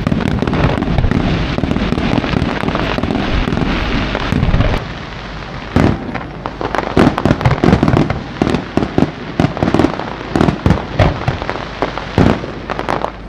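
Fireworks going off in a display. For the first few seconds there is a dense, continuous crackle and rumble. After a brief lull, rapid, irregular sharp bangs follow from about six seconds in, several a second.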